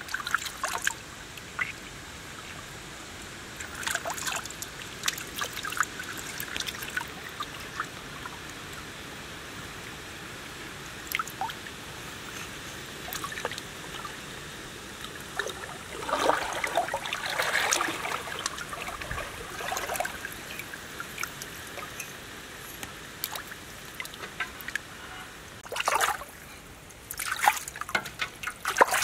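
Water splashing and dribbling as hands rinse baby crocodiles in shallow water, coming in bursts every several seconds over faint steady background noise.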